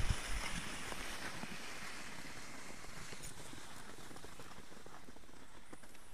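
Skis gliding over packed snow, a steady hiss. Wind buffets the microphone briefly at the start.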